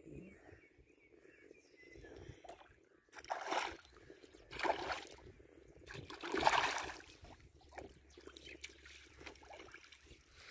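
Water splashing at the side of a boat as a hooked fish is landed with a landing net: three splashes about a second apart, near the middle, over a faint background of lapping water.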